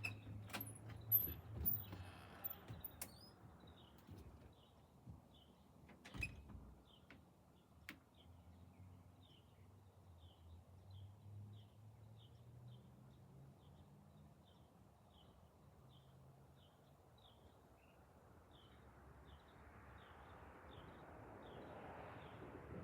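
Faint background: a few sharp knocks in the first seconds, then a short high chirp repeating about twice a second over a low hum.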